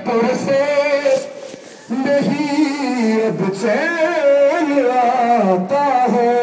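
Unaccompanied male voices chanting a noha, a Shia mourning lament, in long wavering notes, with a brief pause about a second and a half in.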